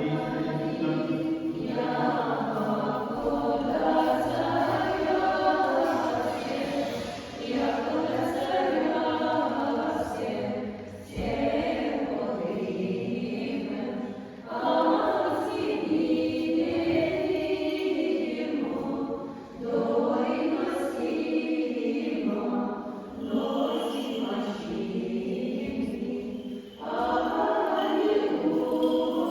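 Orthodox church choir singing unaccompanied liturgical chant in long phrases, with brief breaks between them.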